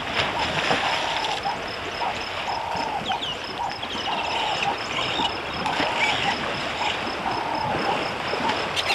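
African elephants splashing and sloshing as they bathe in a waterhole. Over the water, a repeated mid-pitched chirping call and a fast, steady high-pitched pulsing.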